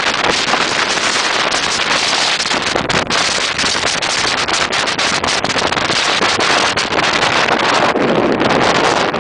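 Strong wind in 25–30 knots buffeting the microphone on a small sailing yacht: a loud, steady rush broken by frequent sharp crackles.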